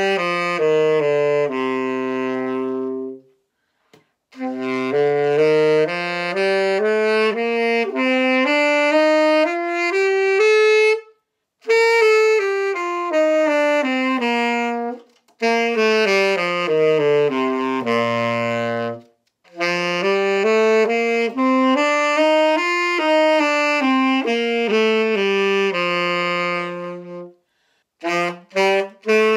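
Beginner's tenor saxophone playing scales, note by note up and down, in phrases with short breathing gaps between them. Near the end the notes turn short and detached.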